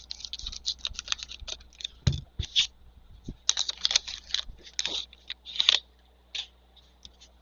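Plastic foil trading-card pack wrapper being torn open and crinkled, a dense run of irregular crackles and clicks that dies down after about six seconds.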